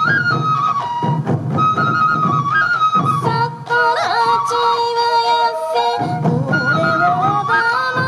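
Sansa odori festival music: yokobue, Japanese bamboo transverse flutes, play a held, stepping melody over the beat of many sansa taiko drums struck by the dancers. A short sliding, voice-like line comes in about halfway through.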